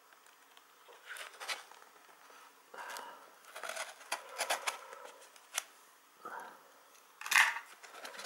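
Utility knife blade cutting through clear packing tape on a small cardboard box: a series of short scraping strokes, with the loudest scrape about seven seconds in.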